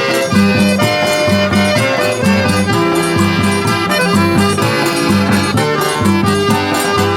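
Instrumental forró music: an accordion plays the melody over a steady, bouncing bass line.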